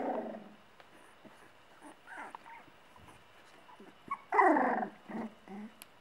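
A Sealyham terrier giving short growly barks and whines. There is one call right at the start, fainter ones around two seconds in, the loudest a little past the middle, and two short calls after it.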